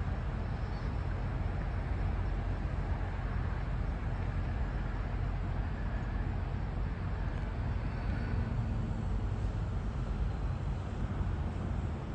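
Steady low rumble of distant road traffic, with no single sound standing out.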